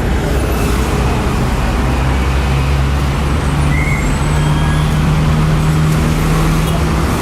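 A motor running steadily: a low hum over a broad rumbling noise, rising a little in pitch over the first few seconds.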